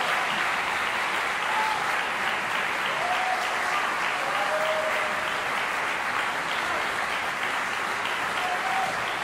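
Concert hall audience applauding steadily after a song recital.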